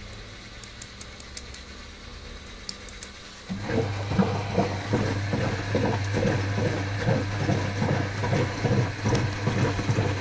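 Miele W453 front-loading washing machine: after a low steady hum, the drum motor starts up about three and a half seconds in with a louder low hum, and the drum turns with the wet wash load tumbling and sloshing in irregular thuds, two to three a second, during the wash cycle.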